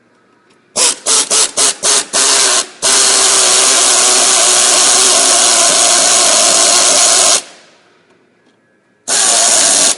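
Power drill-driver driving in the screws that fix a washing machine motor in place. There are about six short trigger pulls about a second in, then a steady run of about four and a half seconds, and another short run near the end.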